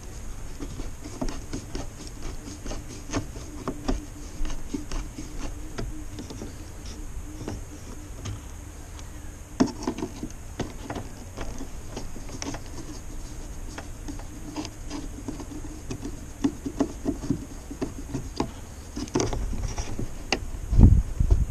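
Hands working along a window frame and its glass pane: irregular light taps, knocks and rubbing over a faint steady hum, with a louder low thump near the end.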